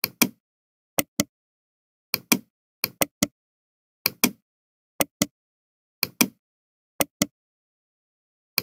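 Computer mouse clicking: pairs of short, sharp clicks, a button pressed and released, about once a second.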